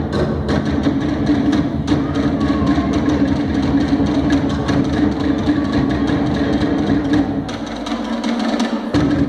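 Polynesian drumming for dance: a fast, driving beat of rapid sharp wooden strokes, several a second, over deep drum tones. Near the end the deep drum drops out for about a second and a half while the fast strokes carry on.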